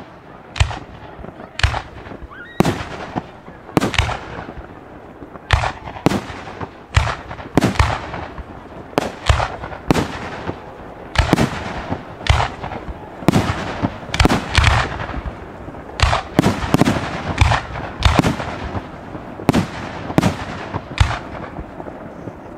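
Fireworks display: a rapid, continuous run of loud bangs from bursting aerial fireworks, coming at a little under two a second, many followed by a short crackling tail.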